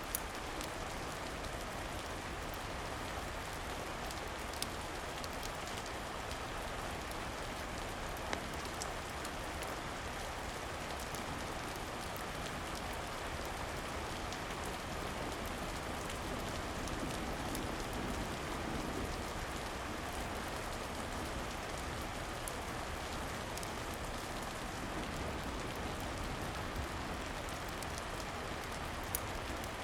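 Steady rain falling, an even hiss of drops, with a few short sharp clicks now and then.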